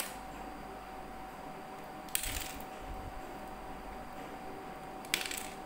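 Plastic LEGO bricks clicking and rattling as they are handled and pressed onto a baseplate: a short clatter about two seconds in and another near the end, over a steady background hum.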